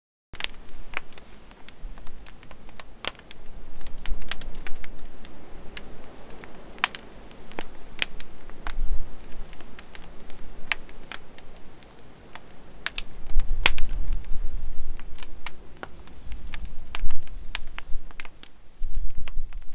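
Split firewood burning in the open firebox of a wood furnace, crackling with many irregular sharp snaps and pops over a low rumble.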